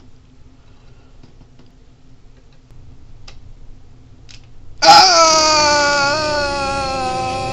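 A few faint ticks of a small screw being worked into the plastic rotator housing of a 3D-printed mini siren. About five seconds in, a loud dramatic music sting cuts in: a sustained chord that slowly sags in pitch.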